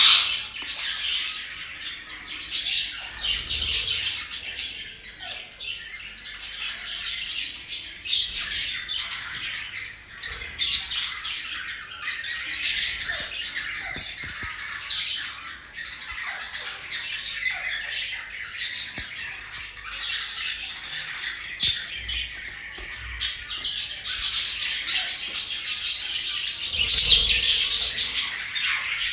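Pet budgerigars and parrots chattering and squawking in a steady, dense stream of high-pitched chirps. There are louder flurries of squawks at several points, the biggest near the end.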